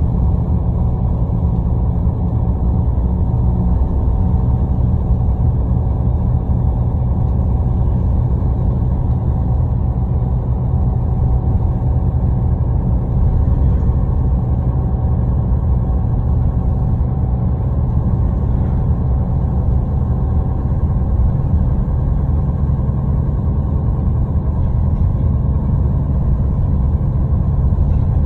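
MAN A22 NL323F city bus at steady cruising speed, heard from inside the cabin: a steady low engine drone mixed with road and tyre noise, with no change in pitch.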